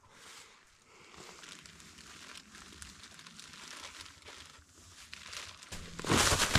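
Crunching and rustling from a hiker moving through frozen brush and undergrowth. It is faint for most of the stretch and turns loud about six seconds in.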